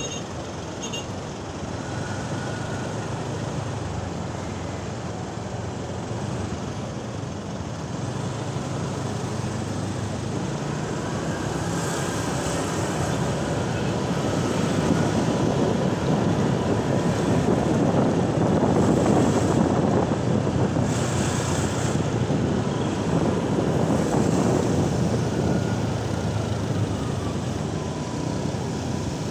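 Road noise from a ride on a Honda scooter in city car traffic: the scooter's small engine running, surrounding traffic, and wind rush on the microphone, a steady hum and rush that grows louder through the middle and eases off near the end.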